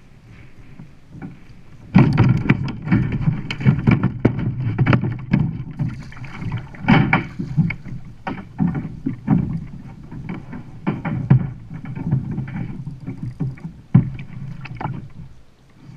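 Water splashing and slapping against a plastic fishing kayak's hull, with many sharp knocks and thumps on the hull, starting suddenly about two seconds in and easing off near the end.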